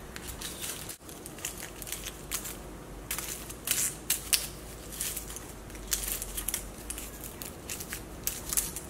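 Hairdressing foil being crinkled and folded onto hair in short, scattered crackles and rustles, over a faint low hum.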